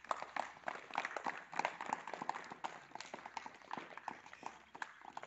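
Scattered hand clapping from a small group, uneven claps several times a second, applauding a prize winner.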